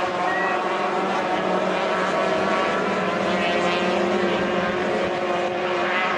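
Racing boat's engine running at high revs, a steady high-pitched drone that holds without a break as the boat runs flat out.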